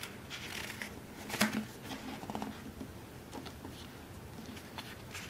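Paper pages of a thick photo book being turned and handled: soft rustling with scattered small clicks and one sharper tap about a second and a half in.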